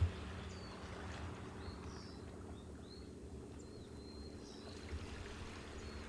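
Quiet outdoor ambience: a few short, high bird chirps over a low, steady hum.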